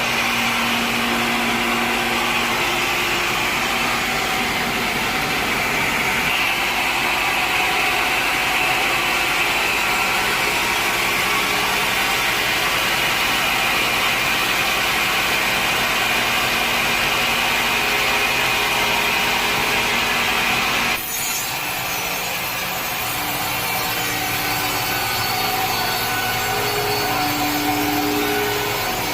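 Sawmill saw cutting through a log, a steady sawing noise that changes abruptly about two-thirds of the way through.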